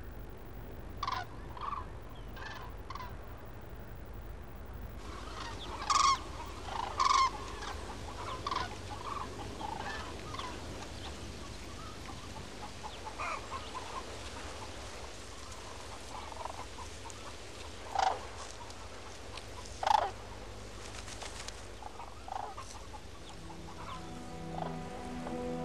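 Waterfowl calling: scattered short calls, the loudest a pair about six and seven seconds in and another pair at about eighteen and twenty seconds, over a steady low background noise.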